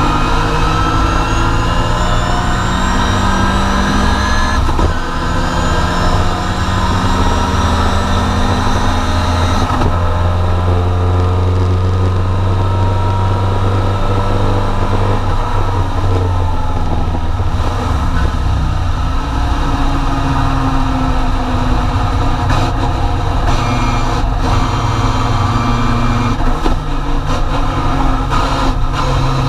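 Triumph TR4 race car's four-cylinder engine heard from inside the cockpit, running hard at racing speed. The engine note climbs in pitch, breaks and drops about five seconds in and again near ten seconds, holds steady for a few seconds, then rises and falls through the corners.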